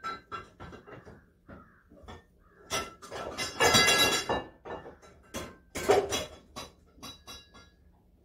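Metal parts clinking and knocking as they are handled and shifted about on a workbench, some with a short ringing clink. A longer, louder clatter comes about three and a half seconds in, and another sharp knock comes near six seconds.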